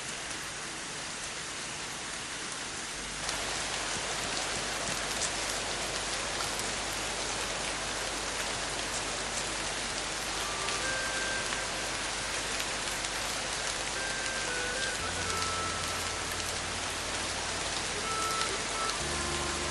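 Steady rain falling, growing heavier about three seconds in. Soft held musical notes come in from about halfway, with a low drone near the end.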